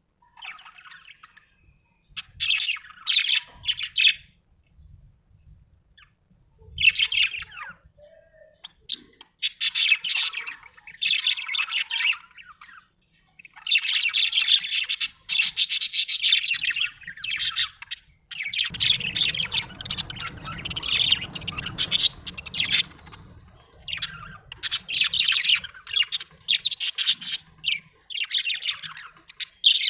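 Budgerigar chirping and chattering in bouts of rapid warbling notes, with brief pauses between them and one long unbroken stretch of chatter midway.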